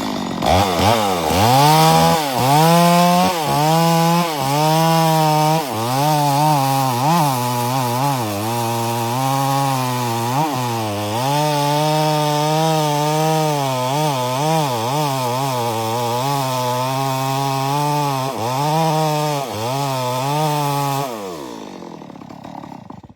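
Chainsaw cutting wood at full throttle, its engine pitch dipping again and again as the chain bites and then picking back up. Near the end the throttle is let off and the engine winds down.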